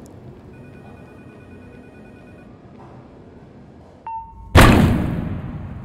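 Quiet room tone. About four seconds in comes a short beep-like tone, and a moment later a loud sudden crash-like hit that dies away over a second or so.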